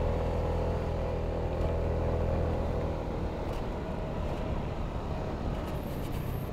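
Honda Forza 250 scooter's single-cylinder engine running steadily while riding; about three seconds in its engine note drops away, leaving wind and road noise.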